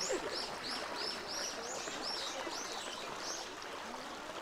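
A small bird calling: a fast run of short, arched chirps, about three a second, that stops about three and a half seconds in, over a steady background hiss.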